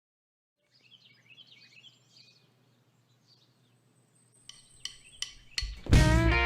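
Faint chirping like small birds, then four sharp clicks in quick succession. Loud guitar music starts abruptly near the end.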